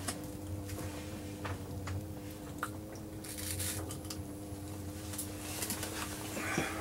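Close handling noises, scattered light clicks and rustles, with a short flurry of clicks near the end, over a steady low hum.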